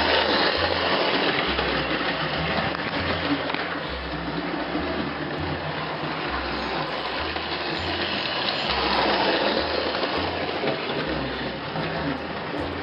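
Background music with a steady, repeating bass line under a dense wash of sound.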